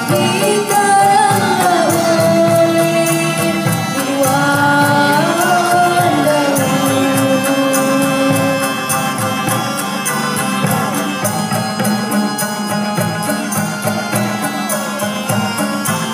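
A ghazal ensemble playing live: a melody that slides and ornaments between long held notes, over a steady percussion rhythm. About halfway through the held melody notes thin out while the rhythm carries on.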